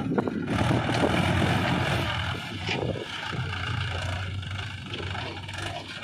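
Mahindra 295 DI Turbo tractor's diesel engine running steadily as it pulls a trolley heaped with mud, louder for the first few seconds.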